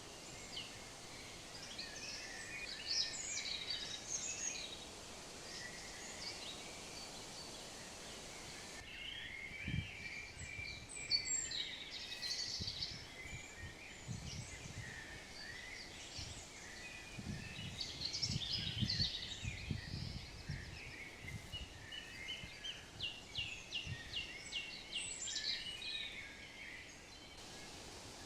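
Several songbirds chirping and singing in woodland over a faint steady background hiss, with a few soft low thumps partway through.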